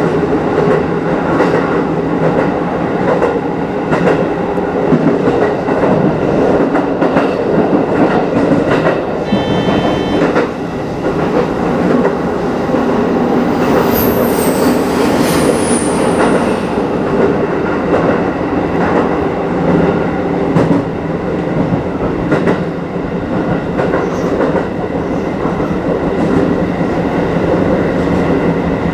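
Running noise of an Aonami Line electric train heard inside the driver's cab: a steady rumble and hum of wheels and motors with rail-joint clicks. About halfway through, a brief high wheel squeal as the train takes a curve.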